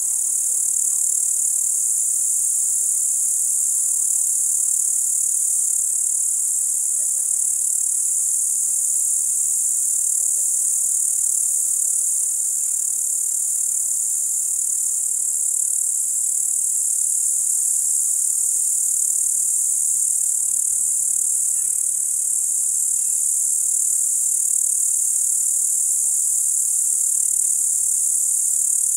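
Crickets singing in a steady, high-pitched chorus that does not let up.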